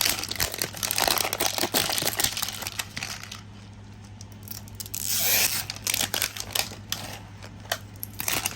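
Mini Brands plastic capsules and their packaging being handled: crinkling, rustling and rapid plastic clicks, with a longer tearing rasp about five seconds in.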